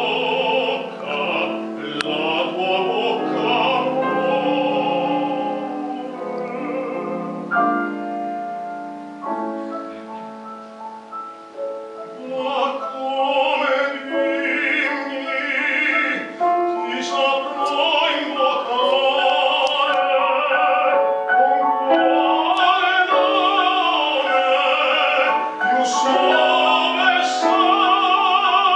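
Operatic tenor singing an Italian aria with wide vibrato over instrumental accompaniment. The voice drops out for a quieter instrumental passage about eight seconds in, then comes back strongly a few seconds later.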